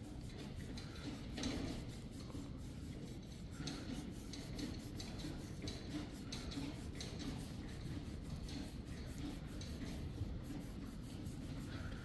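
Fingers scratching and rubbing a horse's coat on its chin and cheek close to the microphone, a soft repeated scratchy rasping.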